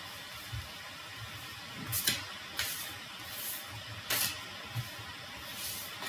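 A deck of divination cards being shuffled and handled, giving several short papery swishes about a second apart.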